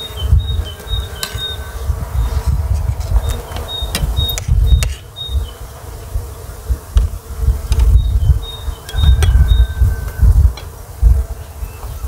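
A flying insect buzzing steadily close by, over a loud, gusty low rumble. Sharp clicks of metal spoons against china plates come now and then, along with little runs of short, high chirps.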